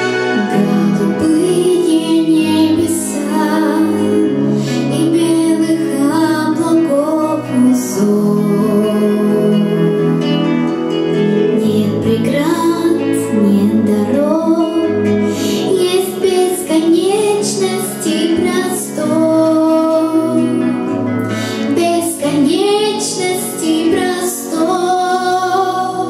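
A young girl singing a song into a microphone over instrumental accompaniment, holding and bending sustained notes.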